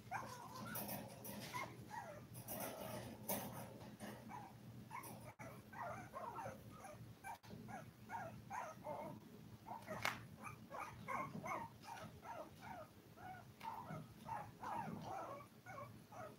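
Five-week-old toy poodle puppies crying: a long run of short, high-pitched calls, several a second. One sharp, louder sound comes about ten seconds in.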